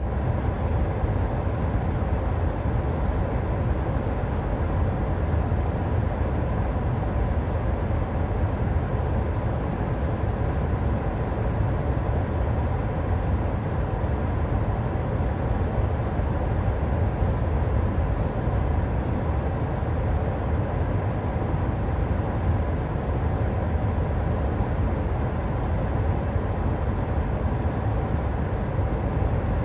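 Steady, unbroken low rumble of a vehicle running, with a fainter hiss above it and no change in level.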